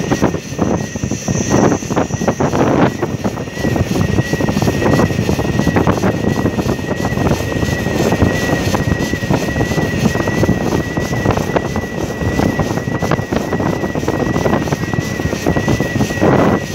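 E-bike's electric motor giving a steady high whine while riding, under heavy gusty wind noise on the microphone.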